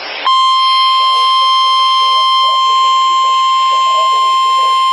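NOAA Weather Radio 1050 Hz warning alarm tone: one steady, loud, high tone that starts just after a short burst of radio static and holds unchanged. It signals that a warning broadcast follows, here a tornado warning.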